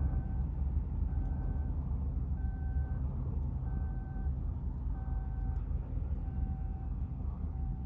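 A steady low rumble, with a faint electronic two-tone signal over it: a higher and a lower beep alternate, each about half a second long, repeating evenly.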